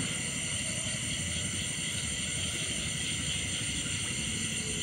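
Small boat's motor running steadily.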